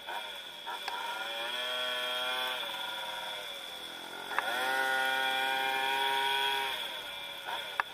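The 74cc Gilardoni DDL two-stroke engine of a tuned Puch Maxi moped revving high under throttle. It climbs in pitch twice, easing off briefly between the two pulls. A few sharp clicks come through.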